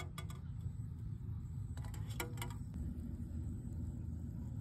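Eggs set into a stainless steel pot of water, knocking against the metal: two light clinks near the start and a cluster of knocks with a brief ring about two seconds in. A steady low rumble runs underneath.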